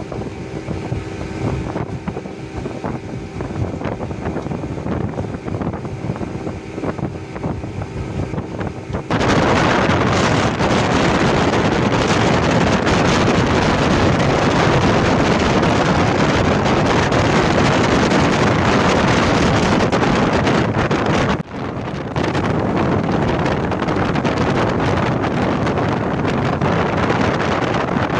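Speedboat engine running with a steady drone, and wind buffeting the microphone. About nine seconds in, the wind noise abruptly becomes much louder and stays so, with a brief drop a little past the two-thirds mark.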